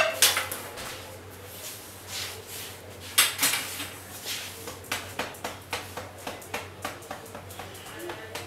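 Kitchen clatter: irregular clinks and knocks of metal utensils, with a louder knock about three seconds in. In the second half it settles into a quick, fairly even light tapping.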